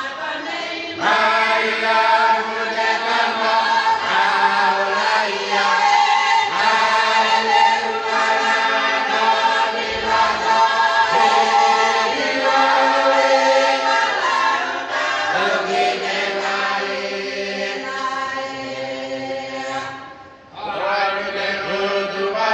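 A church choir or congregation singing a hymn together, many voices holding long notes in several-part harmony. The singing breaks off briefly near the end and then starts again.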